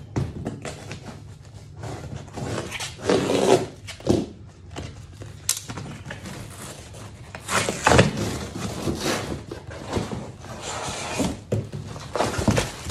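A large cardboard shipping box being opened by hand: cardboard scraping and rustling as the flaps are worked open, with a few sharp knocks as the box is handled.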